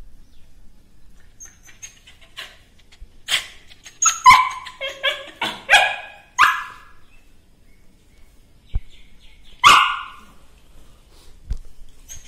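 Small white spitz-type dog barking: a quick run of about six barks, then a pause and one more bark.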